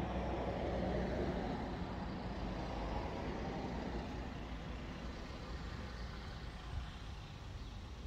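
A road vehicle going by. Its engine noise and rumble peak about a second in, then slowly fade away.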